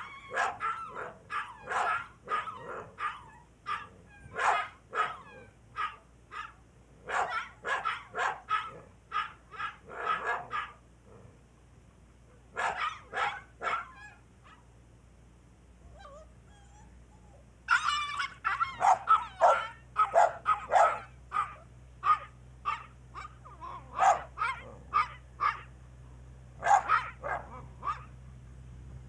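A puppy yapping at a much larger dog in rapid runs of short, high barks, breaking off twice for a few seconds.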